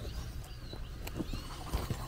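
A few footsteps on loose, freshly dug earth as a person walks closer. Under them runs a steady low rumble, with faint bird chirps about a second in.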